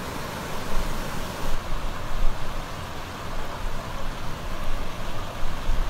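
Muddy flash-flood water rushing down a street, a steady rushing noise with a fluctuating low rumble. The sound changes abruptly about a second and a half in, where the footage cuts to another flooded street.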